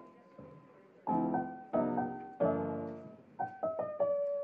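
Background piano music: single notes and chords struck and left to fade, quiet for the first second and then a run of chords.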